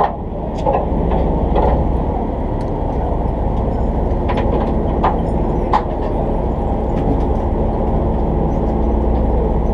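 Fishing charter boat's engine running steadily, a low hum under wind and water noise, with a few sharp clicks between about four and six seconds in.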